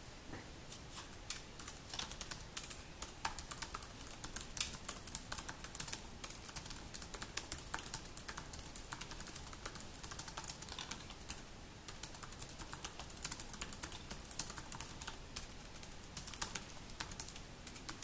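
Fast typing on a MacBook laptop keyboard: a dense run of light key clicks, with a brief pause about two-thirds through.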